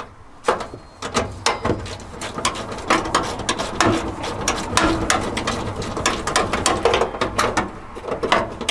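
Hand socket ratchet clicking rapidly and irregularly as a bolt on a radiator core support bracket is backed off, starting about half a second in.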